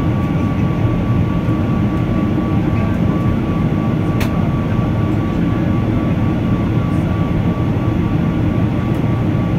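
Cabin noise of a Boeing 777-300 in its climb after take-off: the Rolls-Royce Trent 800 engines and airflow make a steady low rumble, with a steady whine running through it. A single click about four seconds in.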